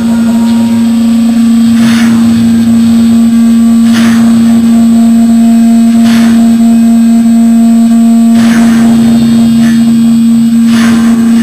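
A live band's distorted, amplified guitar drone holds one low note loudly and steadily, with a sharp crashing hit about every two seconds, in a small, reverberant room.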